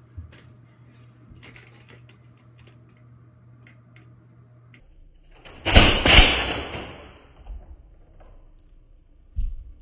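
Nerf blaster being handled off-camera: a loud rattling burst about halfway in, two quick clacks fading over about a second, then a short thump near the end.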